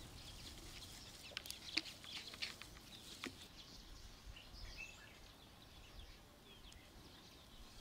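Faint wet clicks and squelches of hands kneading raw minced meat on a wooden plate, grouped in the first few seconds. A faint bird chirp comes about five seconds in.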